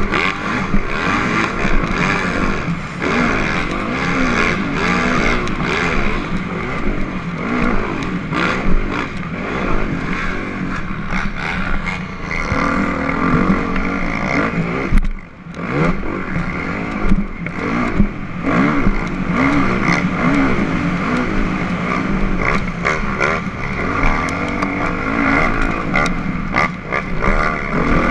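Motocross dirt bike engine heard from on board, revving up and down with the throttle and gear changes. The sound drops away briefly about fifteen seconds in, then picks up again.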